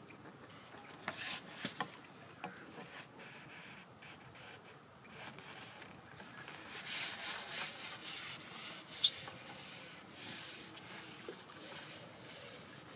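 Intermittent rubbing and rustling with a few small clicks, and one sharper click about nine seconds in.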